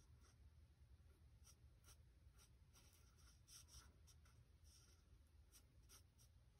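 Faint, short scratchy strokes of an alcohol marker's tip on cardstock, several a second and irregular, as a small area is coloured in, over a low steady hum.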